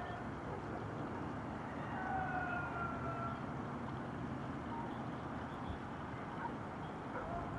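Steady outdoor background noise drifting up from below, with a long, slightly falling wailing tone heard about two seconds in and again near the end.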